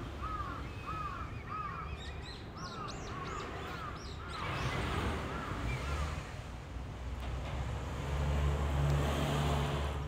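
A bird calling in a quick run of short, arched notes, about three a second, with a few higher chirps from another bird in the middle; the calls stop about halfway through and a steady low engine hum comes in.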